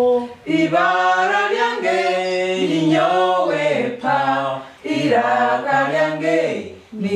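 A small group of adult voices singing a Runyoro-Rutoro letter-sound song unaccompanied, in held melodic phrases of a second or two with short breaks between them.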